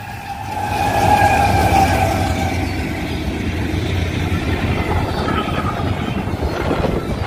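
Union Pacific intermodal freight train passing the crossing: a loud, steady rumble of locomotive and rolling cars that builds about a second in. Over the first two seconds a fading horn tone falls slightly in pitch under it.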